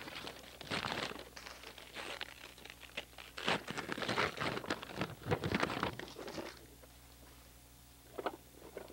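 Gift wrapping paper crinkling and tearing as a toddler unwraps a present: a busy run of rustling for the first six and a half seconds, then quieter, with a couple of short crinkles near the end.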